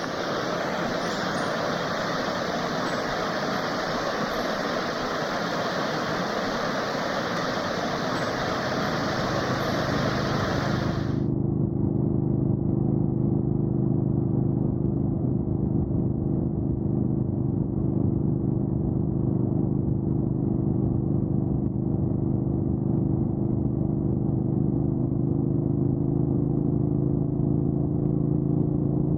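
River water running over stones, a steady rushing hiss; about eleven seconds in it cuts off abruptly to a motorcycle engine running steadily at an even cruising speed.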